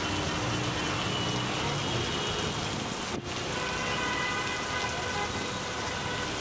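Steady rain pouring onto a wet city street, a continuous even hiss. The sound drops out for a moment about three seconds in.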